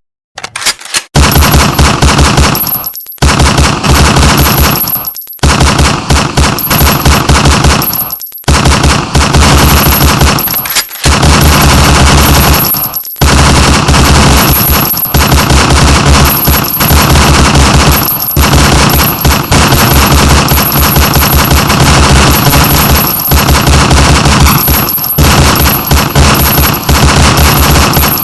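Gunshot sound effect: rapid automatic fire in long bursts broken by brief pauses, almost unbroken through the second half.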